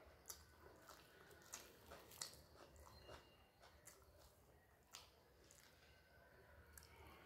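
Faint chewing of a mouthful of rice, with several sharp, wet mouth clicks, while fingers squish and mix rice on a steel plate.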